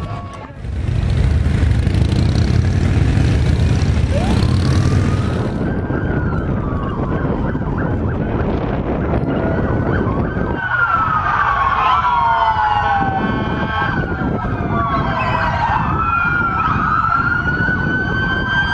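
Several police and fire-truck sirens wailing at once, their pitches rising and falling and overlapping. Before them, for about the first five seconds, comes a loud rushing noise.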